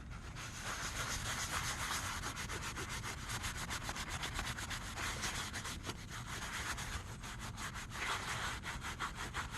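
Rag dampened with kerosene scrubbed over the lathe's tag in quick, steady back-and-forth strokes.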